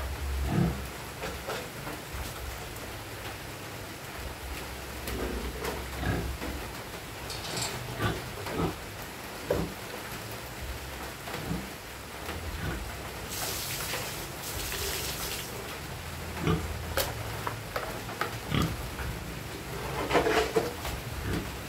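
Piglets grunting and shuffling in their pen, with scattered knocks and a hissing rush of noise lasting about two seconds past the middle.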